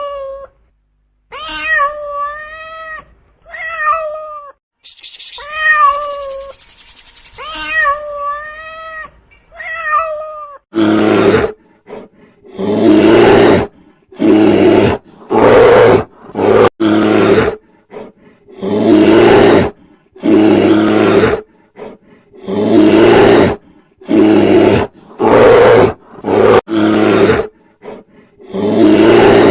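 A domestic cat meowing repeatedly, with a high hiss for a few seconds among the meows. About ten seconds in, a lion takes over, roaring in a long run of loud calls about a second apart.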